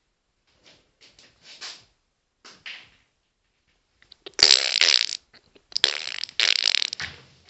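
A few faint short sounds, then from about halfway through a loud, rasping fart-like squeak in three long bursts.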